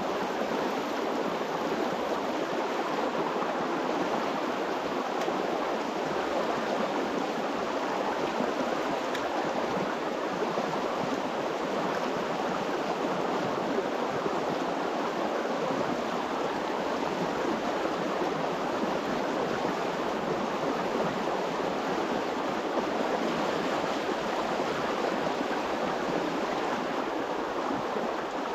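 Stream water rushing steadily, an even unbroken noise.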